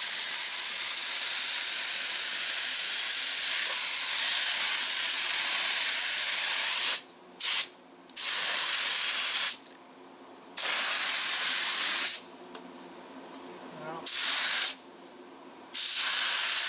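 Spray gun hissing as it sprays stain, steady for about seven seconds, then cut into about five short bursts as the trigger is released and pulled again.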